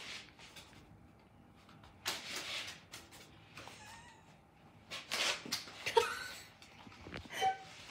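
A dog giving a few short, high whines, the loudest about six seconds in, with short bursts of noise between them: the sound of a dog unsettled by a Swiffer broom.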